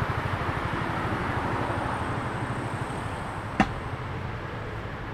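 City street traffic noise: a vehicle passing, its sound fading over a few seconds, with a single sharp click about three and a half seconds in.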